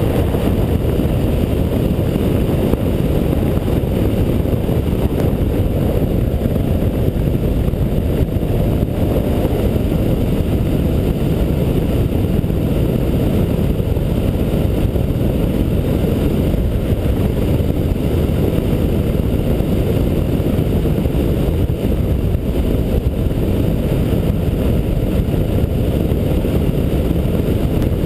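Motorcycle cruising at a steady speed, heard from the bike itself: an even, low rumble of engine, tyre and wind noise, with wind buffeting the microphone and no change in pace.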